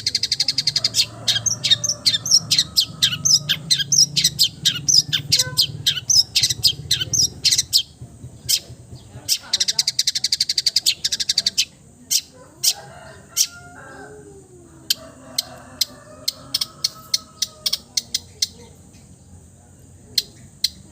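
Long-tailed shrike (cendet) singing a song of mimicked bird calls: a fast run of sharp, high chirps for the first eight seconds or so, then sparser single sharp notes with short bursts of rapid chirping.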